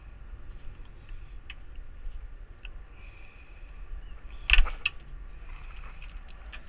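A few light clicks, then a loud cluster of sharp plastic clicks and snaps about four and a half seconds in, over a low steady rumble: a plastic retaining clip being pried loose during a radiator removal.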